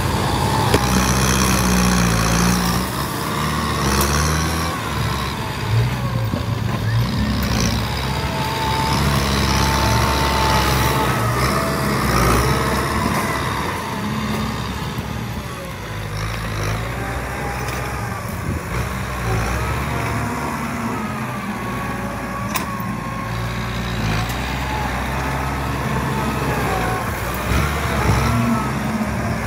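Diesel engines running at a soil dump: first a dump truck with its bed tipped up, then a Kubota tractor pushing soil and rock with its front blade, its engine note rising and falling with the load.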